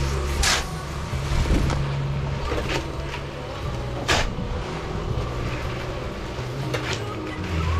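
An engine running steadily at a low, even pitch, with three short sharp scrapes or knocks: about half a second in, about four seconds in and near the end.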